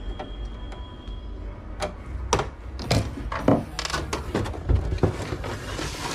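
Plastic casing parts of an inkjet printer being handled during disassembly: a run of clicks and knocks that comes more often from about two seconds in.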